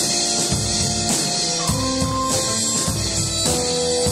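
Live small-ensemble music: a drum kit keeping a steady beat under a constant wash of cymbals, with double bass and held melody notes that step to a new pitch every second or two.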